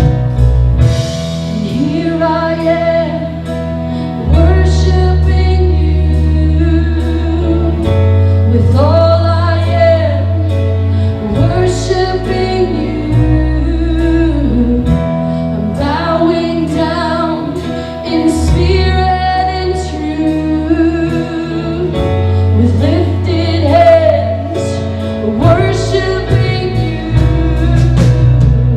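Live church worship band music with singing: a voice sings long held phrases over steady bass notes that shift every few seconds.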